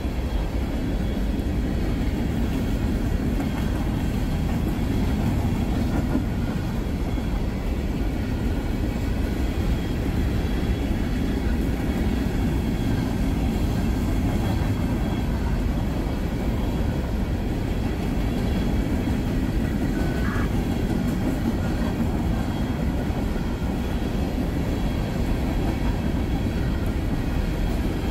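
Norfolk Southern freight train's covered hopper cars rolling past: a steady rumble of steel wheels on rail.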